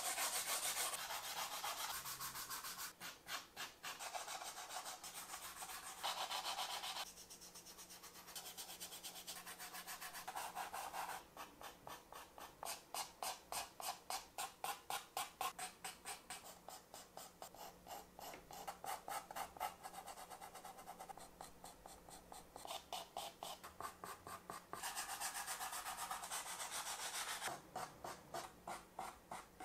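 Soft pastel and pastel pencil rubbing and scratching across paper in quick back-and-forth strokes. At times the strokes come about four a second, and the pace and tone shift every few seconds.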